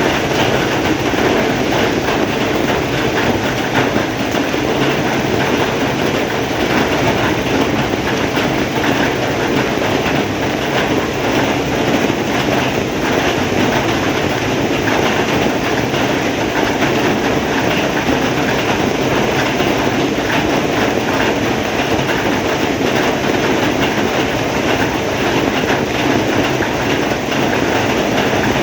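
Heavy rain falling, a loud steady downpour.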